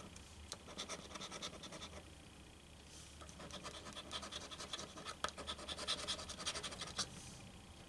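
A coin scraping the coating off a paper scratch-off lottery ticket in quick, short strokes. The scraping eases off about two seconds in, then picks up again.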